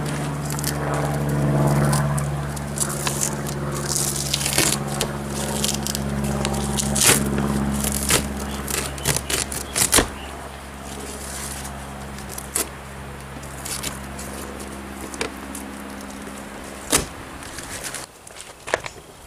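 Old duct tape being peeled and torn off the plastic power-cord hatch door of an RV, in crackling rips and scrapes with a few sharp clicks. A steady low hum runs underneath and stops near the end.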